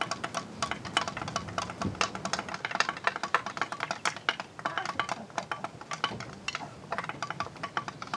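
Rapid, irregular light taps and clicks of fingers on a wooden floor, played as improvised percussion, thinning briefly about two-thirds of the way through.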